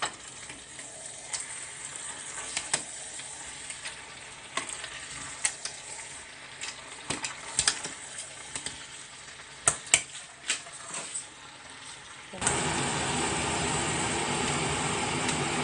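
Metal spoon stirring thick affang soup in a stainless steel pot, clinking and scraping against the pan over the low sound of the soup cooking. About twelve seconds in, a louder steady rushing noise starts suddenly.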